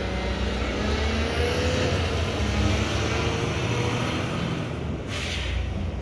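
Mack McNeilus front-loader garbage truck's diesel engine running with a steady low rumble, with a short hiss about five seconds in.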